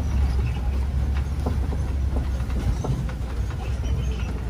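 Safari ride truck driving, a steady low rumble with scattered short knocks and rattles.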